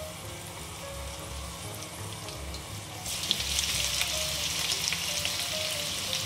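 Hot oil sizzling in a wok as dried red chillies fry. The sizzling grows louder about three seconds in, as chopped ginger goes into the hot oil.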